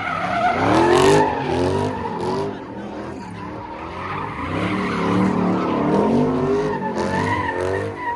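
A Dodge Charger's engine revving up and down over and over as it spins donuts, its rear tyres skidding and squealing.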